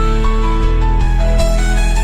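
Background music: slow, held melodic notes over a steady low bass.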